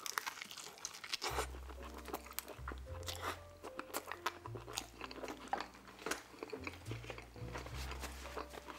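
Close-miked biting and open-mouthed chewing of a stuffed-crust pepperoni pizza slice: dense wet smacks and crunches of the crust. Soft background music with a low bass line comes in about a second in.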